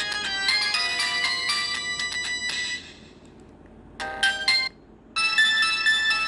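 Samsung GT-E1150 mobile phone's built-in ringtones playing in turn: one electronic ringtone melody ends a little under 3 s in, a short snatch of melody sounds about a second later, and a new ringtone begins just after 5 s.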